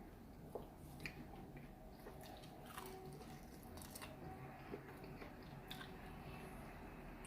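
A person eating quietly: faint chewing with small wet mouth clicks and smacks every second or so.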